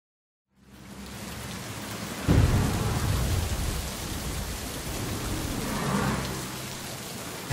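Rain falling with thunder: the rain fades in about half a second in, a sudden thunderclap breaks about two seconds in, and a second rumble swells near six seconds.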